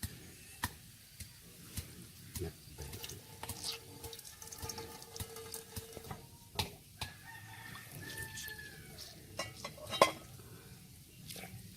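A rooster crowing faintly in the background, over scattered clicks and knocks of things being handled.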